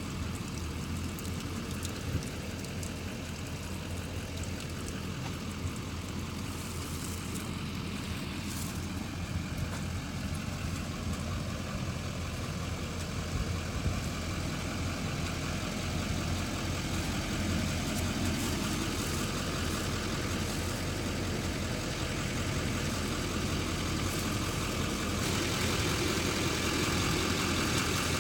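A boat's engine running steadily, growing slowly louder.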